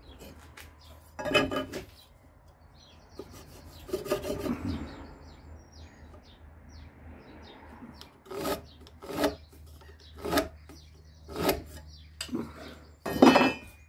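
Carpenter's pencil scratching across rough-sawn timber as lines are drawn against a metal speed square, in a series of short strokes that come more often in the second half, the loudest near the end.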